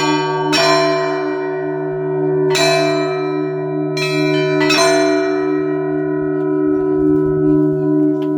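Russian Orthodox church bells: a handful of uneven strikes on the bells in the first five seconds over the steady deep hum of the large bell, then no new strikes and the bells ring on.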